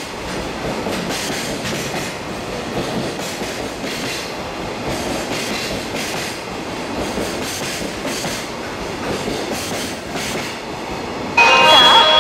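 Freight train rolling past, a steady rumble with its wheels clacking over the rail joints. Near the end, music cuts in abruptly and louder.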